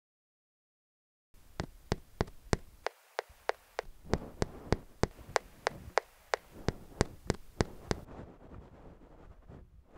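About a second of silence, then a quick, regular series of sharp clicks, about three a second, over a faint hiss. Near the end the clicks stop and a steady rushing noise takes over.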